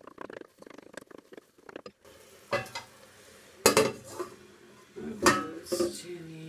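A spoon stirring and scraping in a metal cooking pot with quick light ticks, then an aluminium lid clanking down onto the pot a few times with a short metallic ring.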